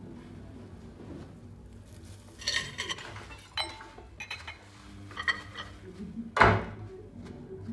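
Dishes and cutlery clinking as they are handled, in short separate clinks, with one louder clatter about six seconds in.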